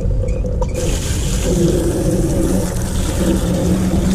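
Water running steadily into a bucket, the rushing sound opening up and getting louder a little under a second in, over a steady low hum.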